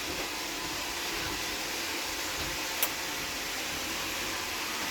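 Roomba robot vacuum running, a steady whirring hiss of its motor and brushes, with one short click about three seconds in.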